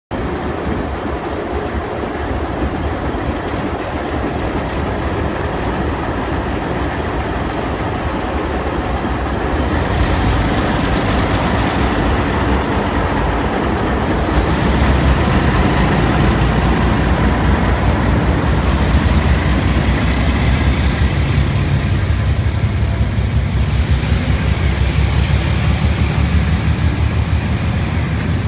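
Diesel-electric locomotive 4490 and its heritage carriages passing slowly on the rails: a continuous low rumble of engine and wheels that grows louder about ten seconds in and again about fifteen seconds in.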